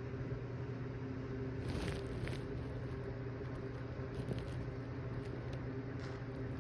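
Steady low hum of room noise, with a few faint rustles and soft clicks about two seconds in and again past the middle; no burp or fart stands out.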